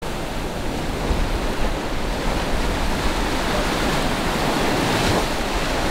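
Small ocean waves breaking and washing up the shore, a steady rushing hiss.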